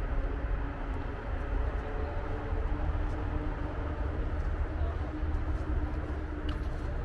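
Steady outdoor city ambience: a low rumble with a constant engine-like hum, typical of distant road traffic.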